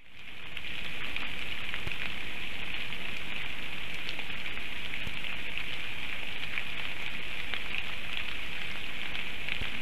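Heavy rain falling steadily, an even hiss with scattered drop ticks, fading in over the first second.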